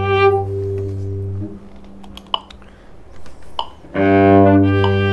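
Cellos playing a slow, simple piece in long held notes: a low accompaniment note under a higher melody note. The pair ends about a second and a half in, and after a short quieter gap with a couple of soft knocks a new pair begins about four seconds in.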